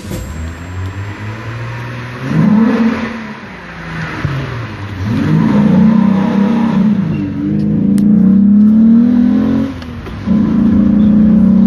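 Volkswagen Passat 35i's VR6 six-cylinder engine revving in a tunnel, its pitch rising and falling several times, held high for a few seconds, dropping briefly about ten seconds in and climbing again.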